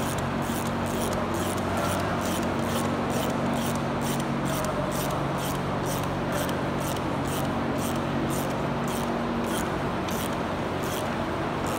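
Ratchet wrench tightening the clamp-ring bolt on an air brake chamber, clicking in a steady rhythm of about two to three strokes a second, slowing near the end.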